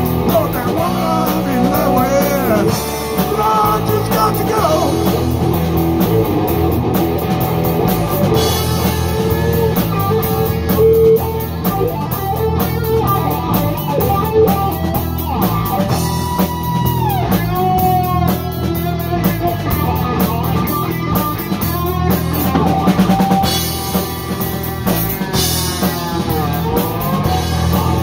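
A live rock band playing: an electric guitar lead with bending, wavering notes and a sharp drop in pitch about halfway through, over bass guitar and a drum kit.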